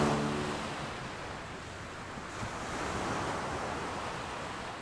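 Ocean surf washing in, an even hiss that swells about halfway through and fades out at the end, while the last notes of a jingle die away at the very start.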